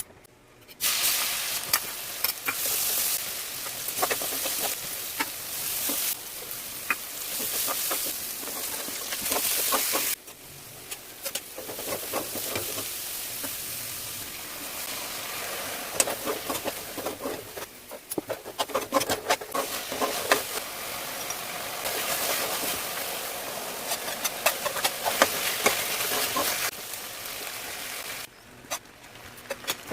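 Stir-frying in hot oil: steady sizzling with frequent sharp clicks and scrapes of a spatula in the pan. The sizzle breaks off abruptly around ten seconds in and again near the end.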